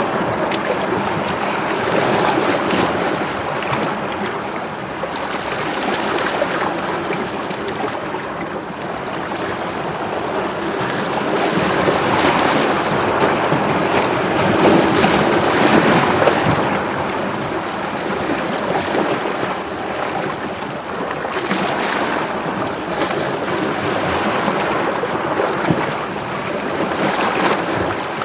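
Sea waves washing and breaking, a continuous surging wash that swells and eases every several seconds.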